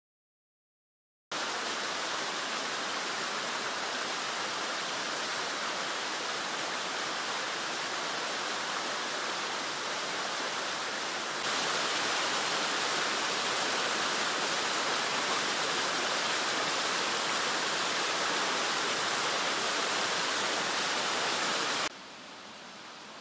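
Waterfall pouring over rock into a stony pool, a steady rush of water. It starts abruptly about a second in, grows louder about halfway through, and drops to a much quieter hiss near the end.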